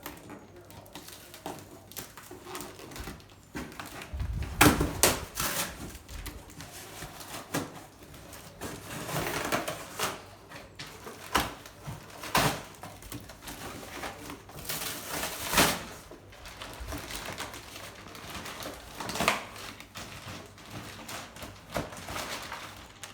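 Irregular knocks, clicks and clatter of tools and metal parts being handled on a workbench, with a cluster of louder thumps about four to six seconds in and single sharper knocks scattered later.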